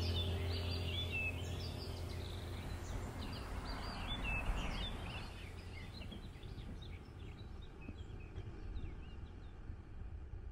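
Small songbirds chirping and twittering repeatedly over a low, steady outdoor background noise, the whole scene slowly growing quieter.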